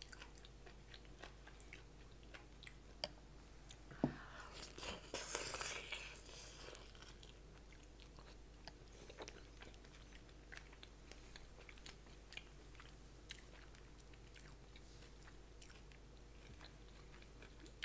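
A person chewing food close to the microphone: quiet mouth sounds with small clicks and crunching, with a louder stretch of crunching about four seconds in.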